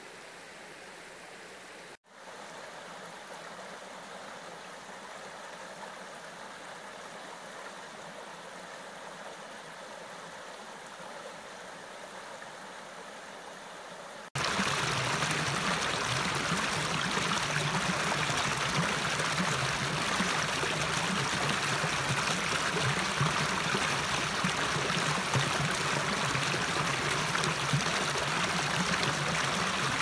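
Stream water flowing over stones, steady and fairly quiet. About halfway through it changes abruptly to a much louder rush of water tumbling around rocks.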